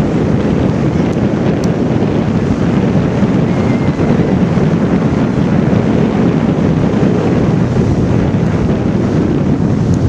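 Strong wind buffeting the camera microphone: a loud, steady low rumble.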